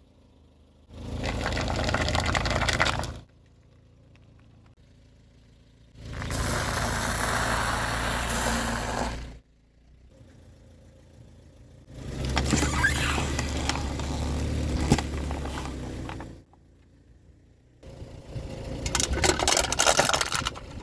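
A car's engine and tyres as it rolls over and crushes objects, in four separate short stretches that start and stop abruptly, with sharp cracks and crunches in the later ones.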